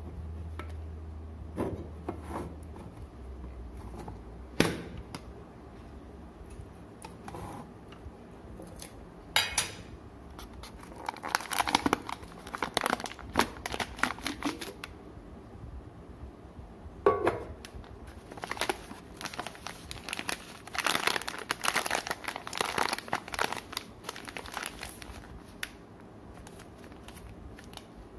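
The metal lid of a coffee tin comes off with one sharp click, then a plastic coffee refill pouch crinkles in repeated bursts as it is pulled out of the tin and handled.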